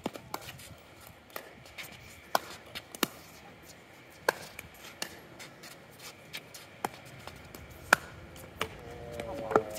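Pickleball paddles striking a plastic pickleball in a fast doubles rally: a string of sharp pocks at uneven intervals, about eight clear hits, the loudest about eight seconds in. Fainter pocks are heard between them.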